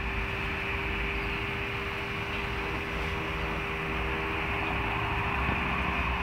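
Self-built robot lawn mower running, its motors giving a steady hum with one constant tone over an even noise.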